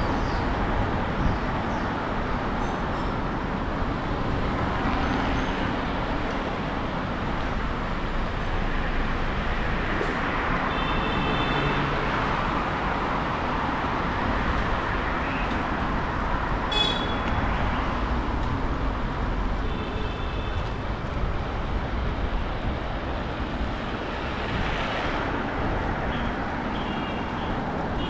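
Steady road traffic noise, with a few short, high-pitched beeps now and then.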